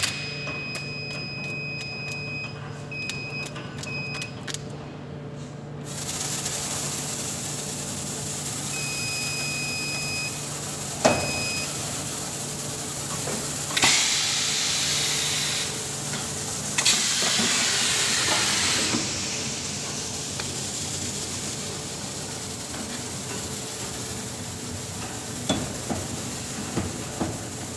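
BOPP tape slitting and rewinding machine running with a steady hum. Short electronic beeps sound several times in the first few seconds and again about ten seconds in, there are two stretches of hissing a little past the middle, and a few knocks near the end.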